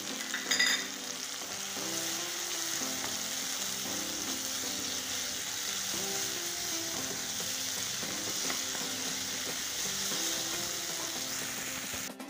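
Sliced onions, tomatoes, green chillies and crushed ginger-garlic sizzling steadily in hot coconut oil in a non-stick pan, stirred with a wooden spatula. A short louder sound comes about half a second in.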